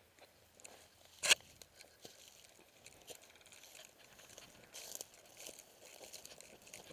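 Rustling, crinkling and crunching, with one sharp loud snap about a second in and smaller ticks after it.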